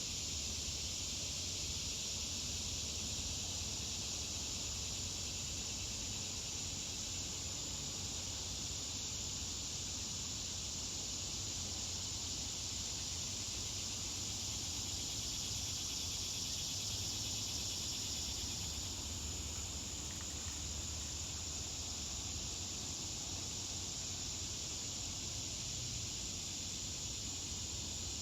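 Steady high-pitched drone of an insect chorus, unchanging throughout, over a low hum.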